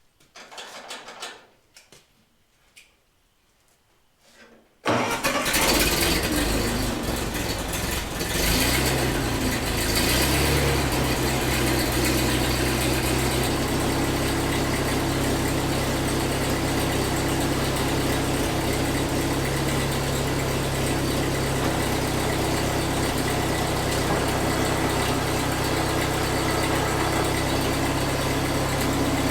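Ford 2N tractor's four-cylinder flathead engine starting: it catches about five seconds in, changes speed for a few seconds, then settles into steady running.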